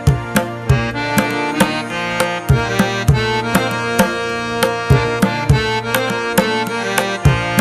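Background music: a steady drum beat of about three strokes a second under a sustained melodic line.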